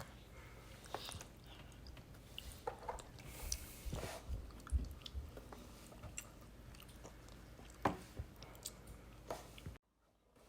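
A toddler chewing food, with soft scattered mouth clicks and smacks. The sound cuts out briefly near the end.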